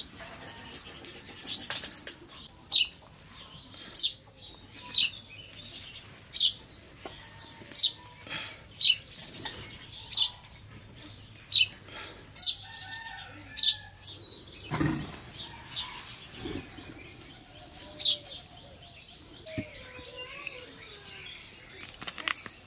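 A dead duck being plucked and skinned by hand: short tearing rips as feathers and skin are pulled from the carcass, about one a second.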